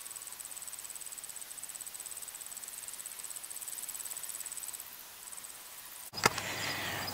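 Insect trilling steadily: a high, fast-pulsing chirp that stops about five seconds in and returns briefly. Near the end a sudden sharp click and louder noise cut in.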